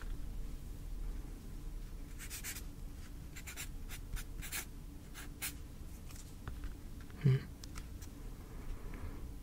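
Writing on paper: a run of short strokes between about two and five and a half seconds in. About seven seconds in there is one brief, louder low sound.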